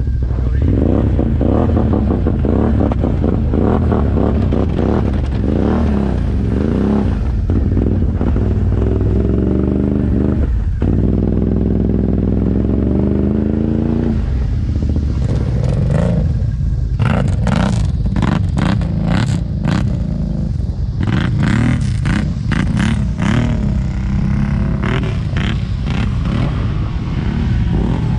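Can-Am ATV engine running, its revs rising and falling. From about halfway through, irregular knocks and clatter join in.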